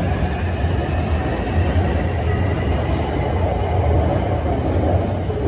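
Beijing Subway Line 8 train running alongside the platform behind the platform screen doors: a steady, loud low rumble with a faint high whine above it.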